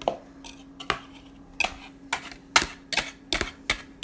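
A wire whisk knocking against the side of a plastic mixing bowl of flour as a toddler stirs. The clicks are irregular, about two a second, and come closer together near the end.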